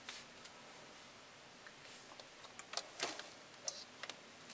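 Faint handling noise from a plastic welding gun being turned over in the hand: a few light clicks and taps, mostly in the second half, over quiet room tone.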